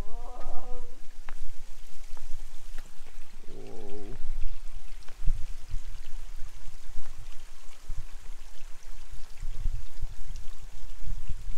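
A woodland stream running, a steady rushing hiss, under irregular low rumbling on the microphone. Two brief vocal sounds come through, one right at the start and one about three and a half seconds in.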